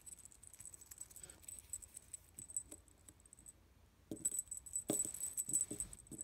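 Small brass jingle bells on souvenir rooster-figurine charms tinkling as the charms are handled, louder over the last two seconds with a few light knocks as one figurine is set down on a wooden table.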